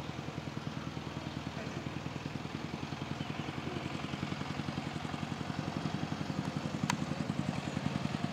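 A small engine running with a fast, even beat that grows louder toward the end. A single sharp click sounds about seven seconds in.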